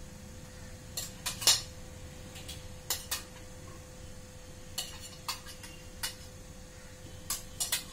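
A utensil clinking against a pressure cooker pot and a bowl as cooked chicken pieces are lifted out: about ten sharp, irregular clinks, the loudest about a second and a half in. A faint steady hum sits underneath.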